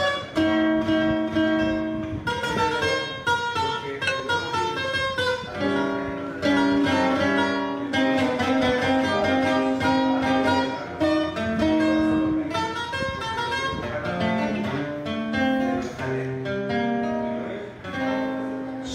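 Solo acoustic guitar played live, a run of picked melody notes mixed with strummed chords, without singing.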